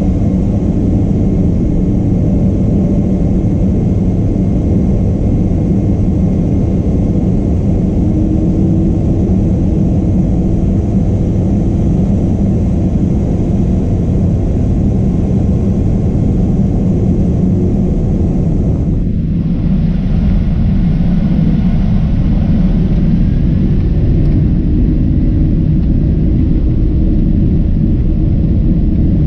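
Cabin noise of a Boeing 767-300ER on the ground, heard inside the cabin: the steady low rumble of its engines and airframe, with a faint steady whine above it.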